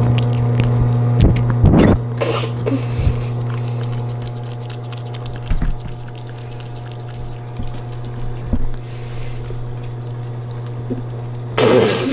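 A kitten lapping water from a bowl close to the microphone: quick small wet clicks over a steady low hum. A few louder rustling knocks about two seconds in and again just before the end.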